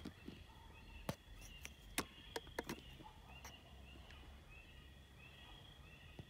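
Faint night insects calling: two steady high trills with short chirps repeating about twice a second. A few sharp clicks come between about one and three and a half seconds in.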